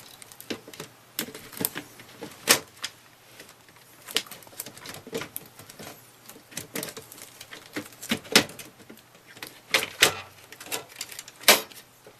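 A computer case's front cover being fitted back on: irregular clicks and knocks, with a few louder snaps.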